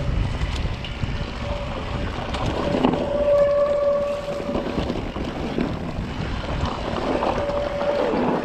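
Electric mountain bike ridden down a dirt singletrack: rumbling wind and trail noise on the mic, with the drive motor's steady whine rising in and out several times as the pedal assist engages.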